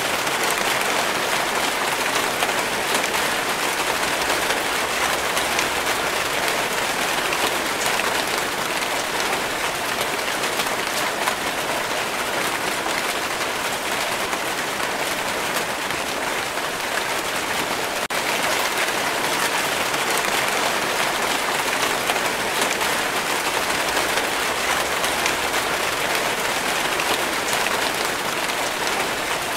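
Steady rain: a dense, even hiss of falling drops, with many small drop impacts on leaves and hard surfaces.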